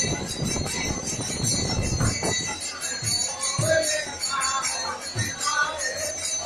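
Music with a steady, fast jingling of bells and a regular low beat, with a few held, wavering tones over it. A crowd's hubbub thickens the low end for the first couple of seconds.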